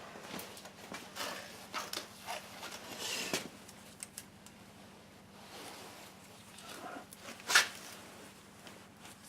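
Hands gripping and twisting a stuck spin-on oil filter on a lawn tractor engine: scattered scuffing and rubbing, with a sharp knock about seven and a half seconds in.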